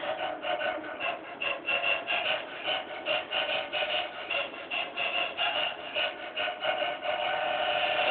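Jumpstyle dance music with a fast, steady beat, sounding thin and muffled.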